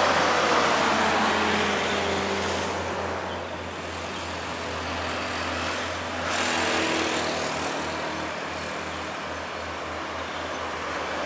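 Road traffic on a hill climb: a vehicle passes with a falling tone early on, then the diesel engines of heavily loaded trucks labour steadily uphill, with a louder rush of passing traffic about six seconds in.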